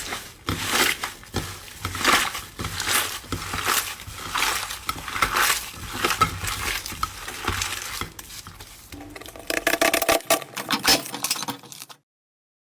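Slime being squished and pressed by hand: a dense run of sticky clicks, pops and crackles. The sound changes character about nine seconds in and stops abruptly near the end.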